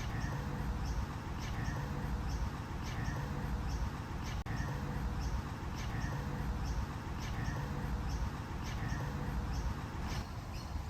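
Short, high chirps repeating evenly, about three every two seconds, over a steady low rumble.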